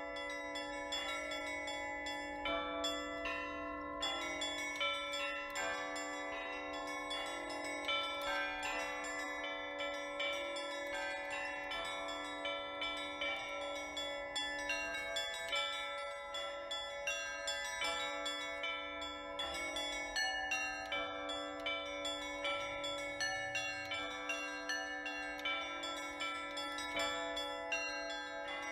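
Russian Orthodox church bells rung by hand, many bells together. Quick repeated strikes of the smaller bells ring out over a steady, lingering low bell tone.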